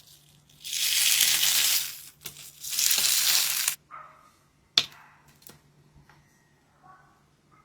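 Water beads being crushed close to the microphone: two long crunching strokes of about a second and a half each, then a few sharp clicks.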